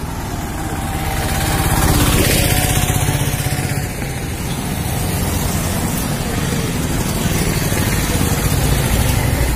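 Engine and road noise heard from a small motor vehicle moving through traffic: a steady low engine rumble under a rushing haze, growing louder about two seconds in.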